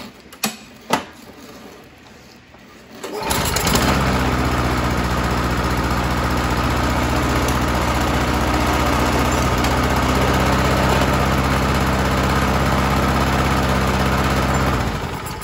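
Tecumseh 6.5 HP OHV (OVMR120) lawnmower engine. After a couple of clicks it starts about three seconds in, runs steadily and stops near the end. With the throttle on fast it is running too slow, which the owner puts down to a governor adjustment.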